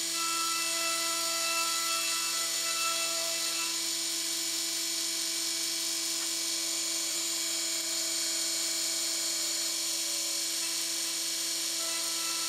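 Mini mill running with a steady motor whine, its cutter facing the side of an aluminum cylinder to take off hardened JB Weld filler. A higher tone comes and goes during the first few seconds.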